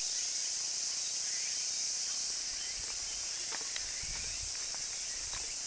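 Loud, steady chorus of insects, a dense high-pitched buzz that does not let up, with faint bird chirps through it.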